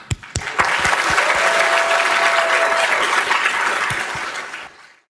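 Audience in a large lecture hall applauding. It starts with a few separate claps, swells within the first second, and fades out near the end. A single steady tone sounds through the middle for about a second and a half.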